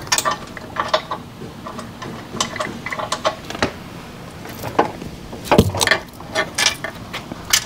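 Irregular metallic clicks and knocks of hand tools and hardware as a steel front bumper is fitted to a Jeep's frame, with a heavier thump about five and a half seconds in.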